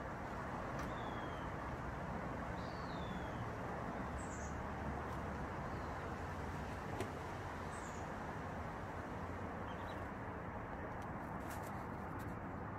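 Steady outdoor background hum, like distant traffic, with a few faint, high, short bird chirps scattered through it and a couple of small clicks near the end.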